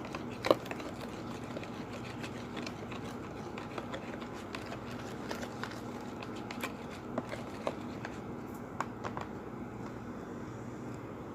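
Goopy, sticky homemade slime being stirred and squished in a bowl, making scattered short wet clicks and pops over a steady low hum.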